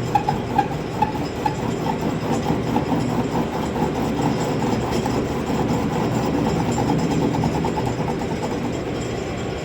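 Metal lathe running steadily, with a quick rhythmic ticking over its hum that is clearest in the first few seconds.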